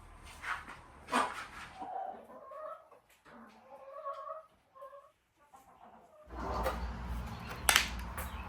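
Chickens clucking: a string of short calls in the middle stretch. A few knocks come before them, and near the end a low rumbling noise starts, with one sharp knock.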